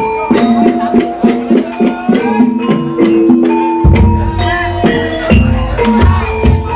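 Traditional Javanese tiban accompaniment music: quick percussive strokes over several held pitched notes, with a deep low beat coming in about four seconds in.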